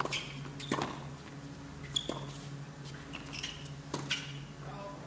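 Tennis ball struck back and forth in a serve and rally on a hard court: about four sharp pops a second or more apart. Short high squeaks of shoes on the court and a low steady arena hum run under them.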